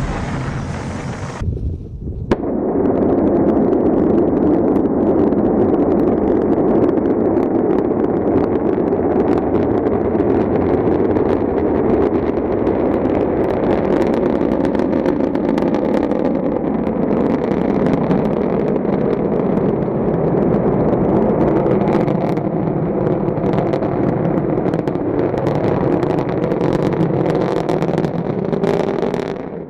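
Rocket engine exhaust at launch: a loud, steady noise full of crackling that holds for nearly half a minute. A different, brighter noise cuts off about two seconds in, and the exhaust sound drops away just before the end.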